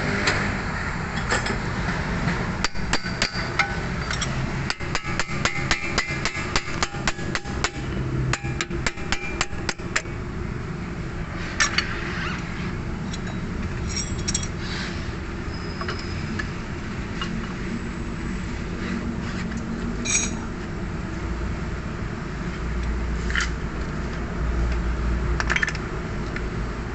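Hand tools working on metal: a quick run of sharp metallic clicks for several seconds, then a few scattered single clinks of tools.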